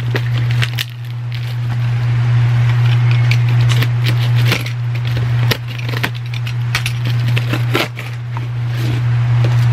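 Cardboard and packing tape being torn and cut off a heavily sealed parcel: a run of crackles, rips and crunches, over a loud steady low hum.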